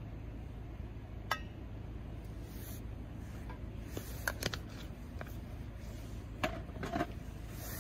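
Metal camping cookware being handled: a metal cup and an aluminium mess tin give a few light clinks and knocks, two close together near the middle and two more later on, over a steady low background rumble.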